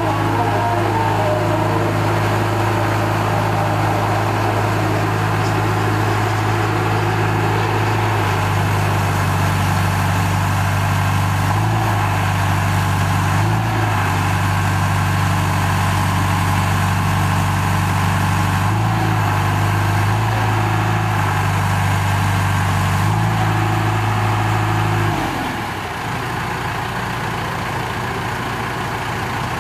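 2002 John Deere 310G backhoe's four-cylinder John Deere 4045 diesel running steadily, its engine note shifting briefly several times. About 25 s in it drops to a lower, quieter idle.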